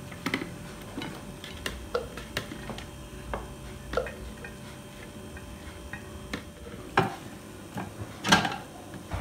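Irregular light taps and knocks of a silicone spatula scraping freshly cut potato sticks out of a clear plastic food-processor bowl onto a plate, with two louder knocks near the end.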